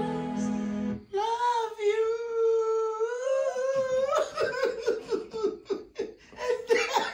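Music with singing stops about a second in. A single voice then holds one long, slightly wavering note. About four seconds in, the group bursts into laughter, which goes on in quick peals.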